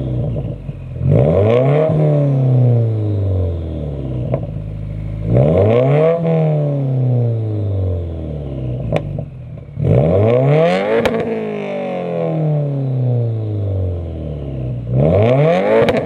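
Subaru WRX's turbocharged flat-four with an aftermarket exhaust, free-revving at a standstill: four quick blips, each climbing fast and then falling back to idle, about every four to five seconds. A couple of sharp pops come as the revs drop.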